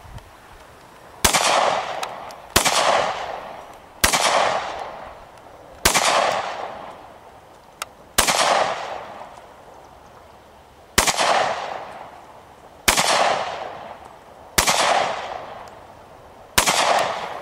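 Nine single gunshots fired one at a time with irregular pauses, each followed by a long fading echo.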